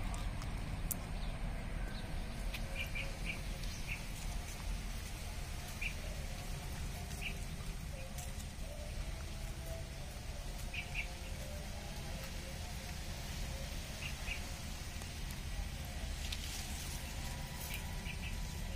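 Short high chirps, singly and in pairs every second or two, over a steady low rumble.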